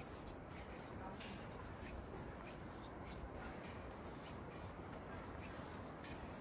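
Faint footsteps on a metal grating walkway, about two steps a second, over a low steady background noise.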